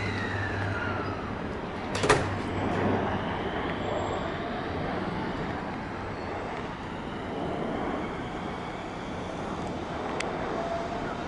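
Electric commuter train running through a station. A whine falls in pitch over the first second, one sharp clank comes about two seconds in, and then a steady running noise carries on with a faint rising whine.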